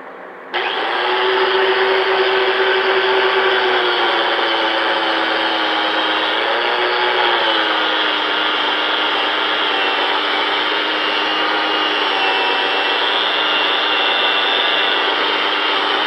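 Corded angle grinder with a buffing pad starting up about half a second in, then running steadily as it buffs the aluminum rim, its motor pitch sinking slightly as the pad is pressed on.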